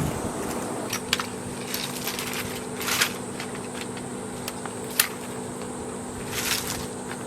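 Scattered clicks and rustles, as of things being handled, over a steady low hum that sets in just after the start; the loudest click comes near the end.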